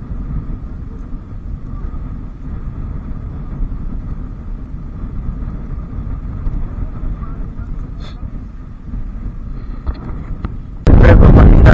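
Wind buffeting the microphone, a steady low rumble. Near the end it cuts abruptly to a much louder rush of noise.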